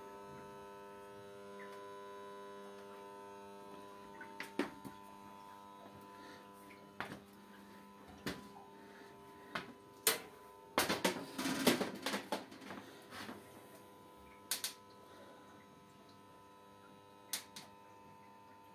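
Steady electrical hum with several fixed tones, broken by a dozen or so short knocks and clatters, with the busiest cluster a little past the middle.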